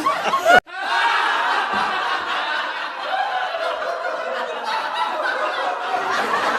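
Recorded laughter sound effect: people laughing together, broken by a sudden momentary cut to silence about half a second in, after which the laughing carries on steadily.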